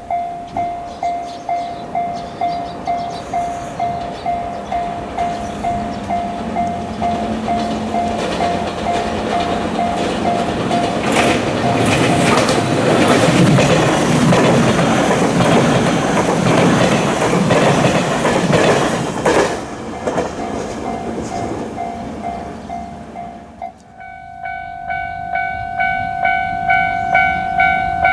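Japanese level-crossing warning bell ringing in a steady beat of about two strikes a second while a train runs over the crossing, its wheels clattering loudly through the middle. About 24 seconds in, a different crossing bell takes over, brighter and richer in tone, ringing at a similar beat.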